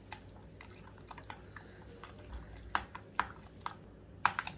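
A hand squishing and mixing thick, wet poha-and-oats batter with chopped onion in a glass bowl: soft irregular squelches with a few sharper wet smacks, the loudest cluster near the end.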